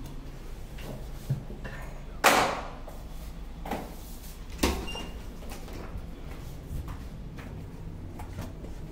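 Cabin door on a ferry shutting with a loud clunk about two seconds in, followed by a second, lighter knock a couple of seconds later, over a steady low hum.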